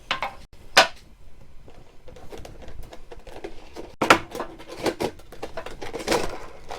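Cardboard Pokémon card collector box and its contents being handled by hand: two sharp knocks near the start, then a busier run of rustles, taps and knocks about four to six seconds in as the contents are lifted out.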